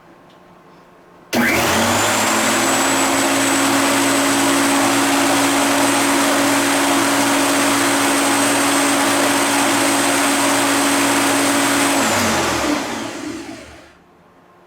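Greenworks 14-inch corded electric lawn mower's 9-amp motor starting about a second in, spinning up fast to a loud steady whine, and winding down about twelve seconds in when the bail lever is released.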